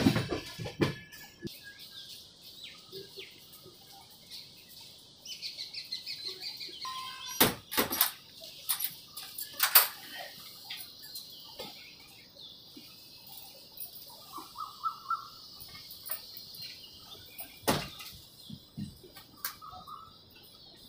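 Many birds chirping together in the trees, a dense high chorus, with a few sharp clicks now and then, the loudest about eight seconds in and again near the end.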